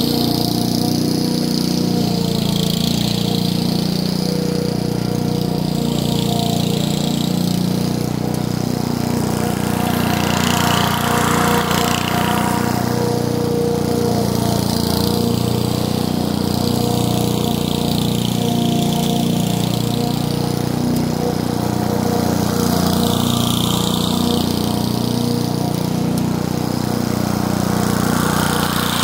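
Old Honda HRU216 self-propelled rotary mower running steadily under load as its swing blades cut overgrown grass. The higher-pitched cutting and blade noise swells and fades a few times as the mower works nearer to and away from the camera.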